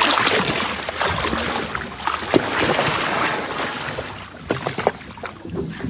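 Rushing water and wind noise on the sea, a loud even hiss for about four seconds, then quieter, with scattered knocks and clicks near the end.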